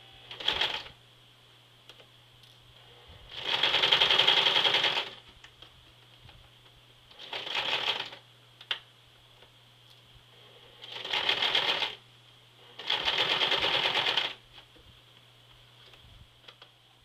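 Electric sewing machine stitching a zipper into denim jeans in five short runs, each a rapid even clatter of stitches. The longest run lasts about a second and a half, with pauses between runs.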